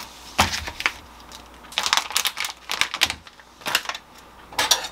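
Quick clicks and light knocks in about five short clusters as chicken breast sausages are handled and set down on a wooden cutting board.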